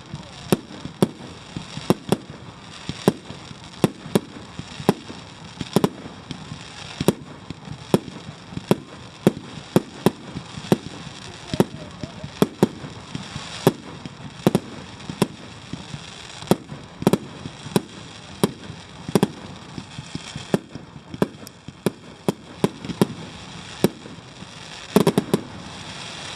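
Fireworks display: a steady run of sharp bangs, about two a second, with a short lull a little before the end and a quick cluster of bangs near the end.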